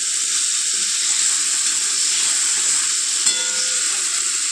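Onion paste and tomato, dried-chilli and garlic paste frying in hot oil in a kadai: a steady sizzle, with one short click a little past three seconds in.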